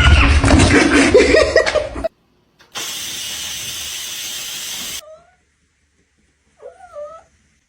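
A loud jumble of sound for about two seconds, then a cat hissing steadily for about two seconds, then two short mews that rise and fall in pitch near the end.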